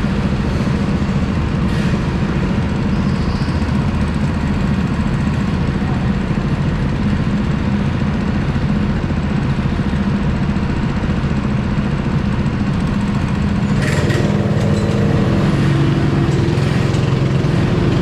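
Go-kart engine running hard, heard from on board the kart. About 14 seconds in, its pitch rises and it grows a little louder as the kart accelerates.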